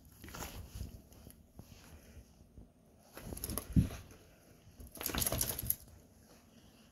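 A dog chewing and pawing at a crumpled piece of paper: scattered bursts of crinkling and chewing, with a dull thump a little past halfway and a longer burst of crinkling about five seconds in.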